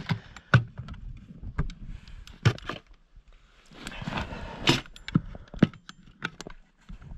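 Handling sounds: a string of sharp knocks and clicks scattered throughout, with a second or so of rustling a little past the middle.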